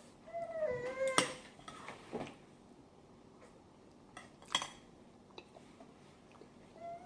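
A cat meows once early on and briefly again at the end. In between come a few sharp clinks of cutlery against a dish.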